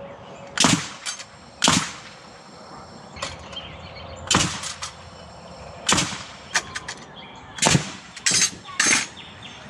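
Pneumatic nail gun firing nails into wooden 2x4 framing: about seven sharp shots, spaced irregularly a second or so apart, each with a quick air-release snap.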